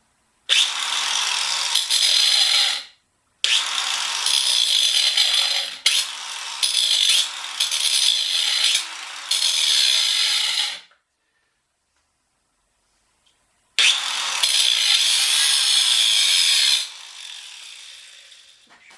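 Small handheld power tool running in three bursts, the middle one the longest, each starting and stopping abruptly.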